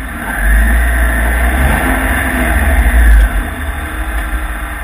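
Ariel Atom's engine heard from the car's own onboard camera, running at low revs with a heavy low rumble. The revs rise briefly about one and a half to two and a half seconds in, and the rumble eases a little after about three seconds.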